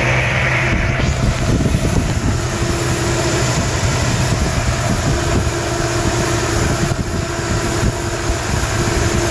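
Chevrolet S-10 pickup engine idling steadily with a whistle that comes and goes, which the owner takes for a vacuum leak.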